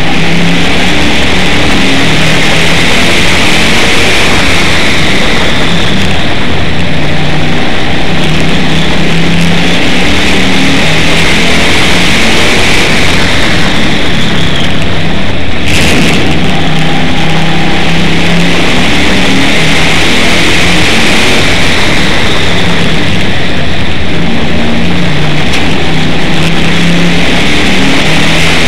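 Limited Sportsman stock car's engine run hard around a short oval, heard loud and close. Its pitch rises and falls over and over as the car accelerates down the straights and lifts into the turns.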